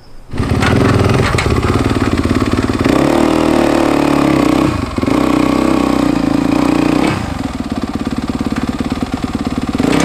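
Yamaha dirt bike's engine running loudly. It rises in pitch for a moment about three seconds in, then settles to a slightly lower, steady running sound after about seven seconds.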